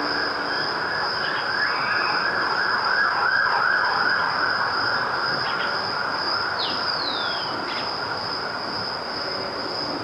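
Outdoor nature ambience: a steady high-pitched drone over a dense rushing noise, with a few short bird chirps and two falling whistled calls about seven seconds in.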